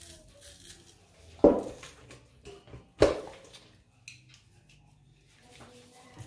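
Two loud knocks about a second and a half apart, with lighter clicks and clinks between them: kitchen utensils striking a hard surface while garlic and onion are prepared by hand instead of being pounded in a mortar.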